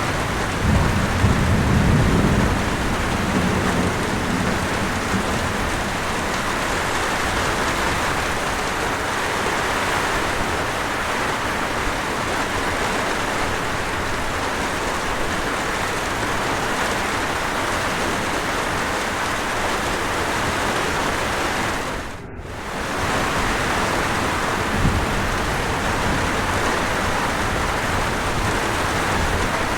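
Steady hiss of falling water and rain, with a low rumble in the first few seconds. The sound briefly drops away for a moment about two-thirds of the way through, then returns.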